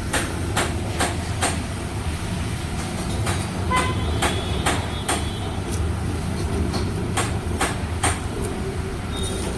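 Metal parts and hand tools clinking and tapping at irregular intervals, a few of them ringing briefly, as a motorcycle timing chain and its parts are fitted into the engine. A steady low mechanical hum runs underneath.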